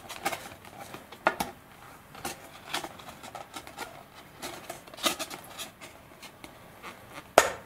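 Molded tail surfaces of an RC sailplane being worked loose and pulled off the tail boom by hand: scattered light clicks and rustles, with one sharper click near the end.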